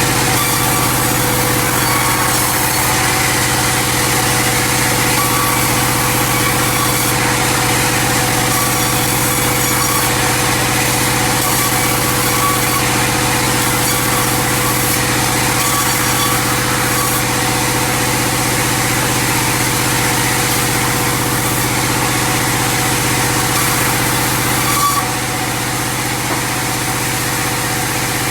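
Sawmill machinery running steadily, with a constant engine drone that holds one pitch and a rougher noise above it. The sound drops slightly in level near the end.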